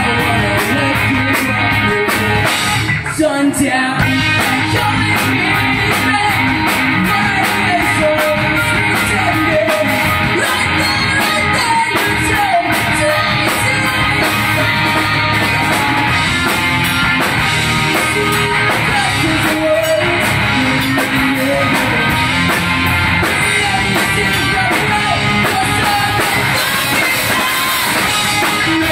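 Live rock band playing loud and full: a lead vocal singing over distorted electric guitars, electric bass and a Ludwig drum kit, with a brief drop in the sound about three seconds in.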